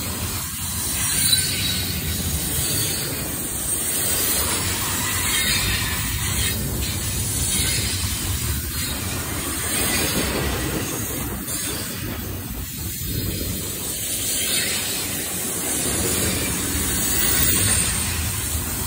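Double-stack intermodal freight cars rolling past close by: a steady rumble and rattle of steel wheels on rail.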